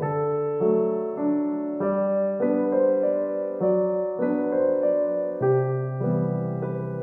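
Background piano music: a gentle solo piano piece with new notes and chords about every half second.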